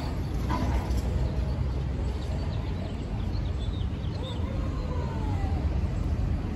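Outdoor city street noise: a steady low rumble of traffic, with faint short chirps above it.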